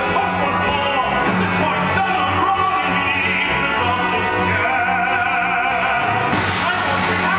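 Live stage-musical music heard from the audience: a solo singer with the pit orchestra playing under the voice.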